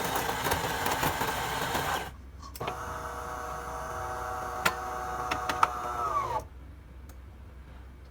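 De'Longhi Eletta Explore bean-to-cup coffee machine at work: a rough whirring for about two seconds, then after a short gap a steady motor hum with a few clicks, which drops in pitch and stops about six seconds in.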